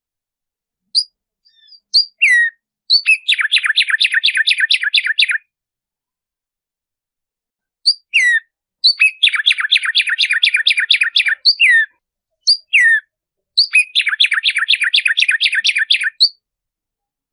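Black-striped sparrow (tumbayegua) singing three song bouts. Each bout is a few separate slurred notes that lead into a fast trill of about five notes a second.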